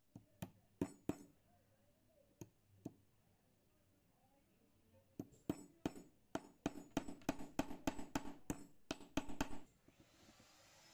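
Small metal parts clinking together as a router bit is handled and changed at the router's collet: a few single clinks, then a quick run of clinks for about four seconds. Near the end a faint rising whine begins as the router starts up.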